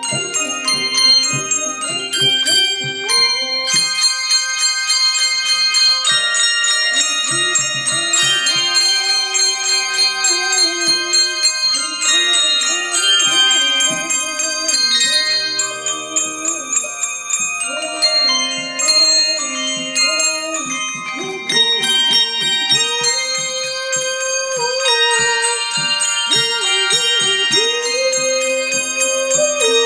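Handbell choir playing a piece of music: many tuned handbells struck in turn and together, their notes ringing on and overlapping.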